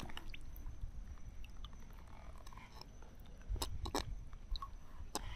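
Faint handling noises: a few short sharp clicks and taps, grouped about three and a half to four seconds in and again near the end, over a low rumble.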